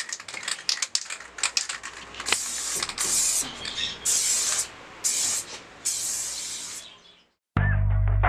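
Aerosol spray paint can: about two seconds of rapid rattling clicks, then five short hisses of spray, each under a second, as paint goes onto the wall. Near the end a hip-hop beat comes in with heavy bass.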